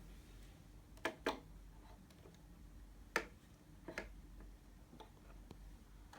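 Scattered sharp clicks and light knocks from a drone being handled and fitted into place on a wall mount. There are two quick clicks about a second in, the loudest click about three seconds in, another about four seconds in, then a few fainter ticks.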